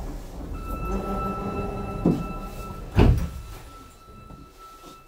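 Sliding doors of a Sapporo subway Toho Line car closing at a station: a steady electronic tone sounds, a short knock comes about two seconds in, and the doors shut with a loud thud about three seconds in.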